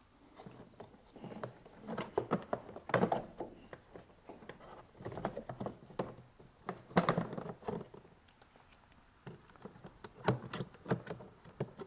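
Hard plastic cabin-filter housing being worked into place around the cowling: a series of knocks, clicks and rattles in several bursts as it is positioned and pressed down.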